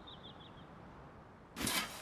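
A handmade longsword swung through the air: one short swish about one and a half seconds in.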